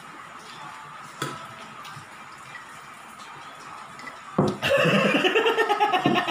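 Low room sound with a single clatter about a second in, then from about two-thirds through a person's loud, pulsing laughter.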